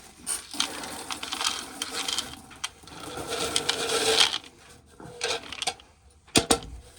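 Dry shelled corn kernels rattling and shifting in a container: a dense clatter of small clicks for about four seconds, followed by a few separate knocks, one sharp knock near the end.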